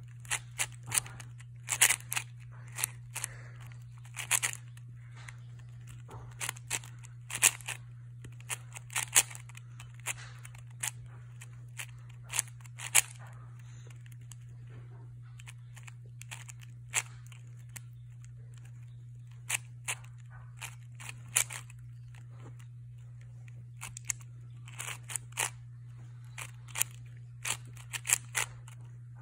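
Plastic 4x4 speed cube being turned by hand: the layers clack and click in quick irregular flurries, with a few quieter pauses between bursts of turning. A steady low hum runs underneath.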